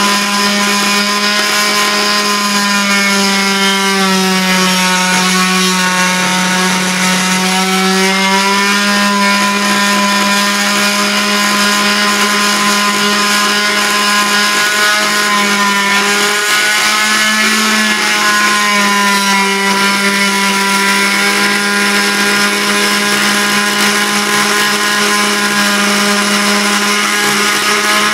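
Deko oscillating multi-tool running continuously, its blade buzzing as it cuts into a thick round slice of log. The steady buzz sags slightly in pitch a couple of times.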